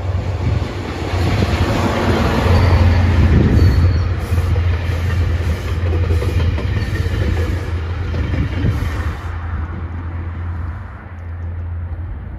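UTA FrontRunner commuter train passing close by: the diesel locomotive's engine hum, then the bilevel coaches' wheels rolling over the rails. It is loudest about three to four seconds in and fades after about nine seconds as the train moves away.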